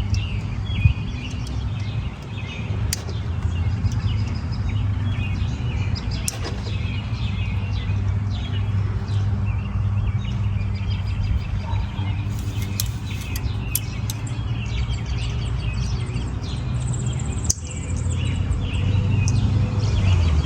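Birds chirping repeatedly over a steady low rumble, with a few sharp clicks scattered through.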